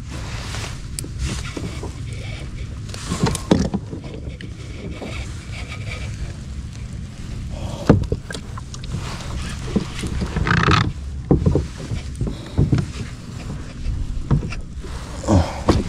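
Water moving around a fishing kayak at sea, with a steady low rumble of wind on the microphone and several brief knocks and splashes.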